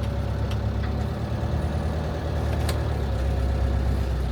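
Diesel engine of a camper van running steadily at a low rumble, warming up before the drive uphill.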